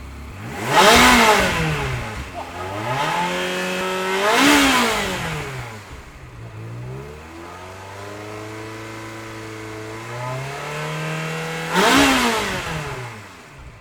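Ferrari engine revved hard three times: each rev is a quick rise in pitch to a loud peak that falls straight back. Between the second and third revs the engine climbs more slowly and holds steady.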